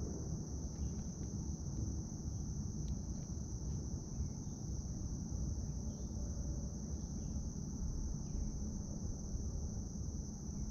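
A chorus of summer insects keeps up one steady, high-pitched drone over a low, even rumble.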